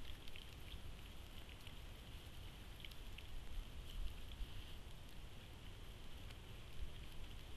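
Faint light rain pattering: a steady hiss with scattered ticks of single drops.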